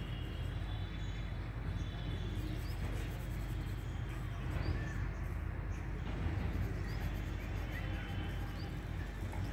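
Outdoor background noise: a steady low rumble with a few faint, short high chirps scattered through it.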